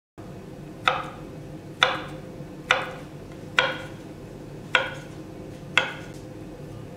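Kitchen knife chopping a boiled carrot on a wooden cutting board: six sharp knocks, about one a second, as the blade strikes the board.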